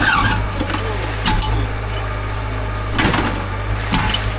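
An engine idling steadily, with four sharp knocks spread over a few seconds, loud against the idle.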